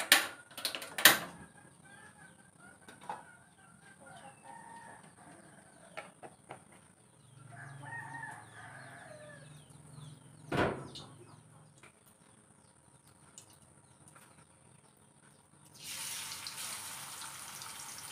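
Chickens clucking and a rooster crowing faintly in the background, with a few sharp knocks of kitchen utensils. About sixteen seconds in, a steady sizzle begins as boiled mushrooms go into hot oil in a wok.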